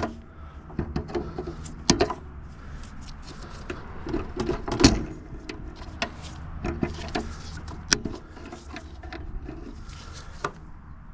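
Scattered clicks, knocks and rattles of hand work on an air conditioner's wiring as wires are loosened and pulled out, with the loudest knock about five seconds in.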